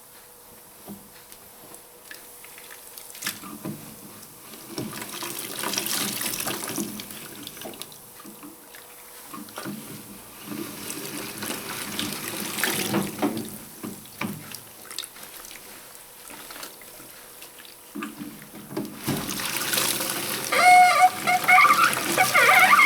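Hoover 0321 wringer washing machine running while a bath sheet is wrung, with water running and splashing back into the tub over a low machine hum. Near the end a louder wavering, high-pitched sound joins in.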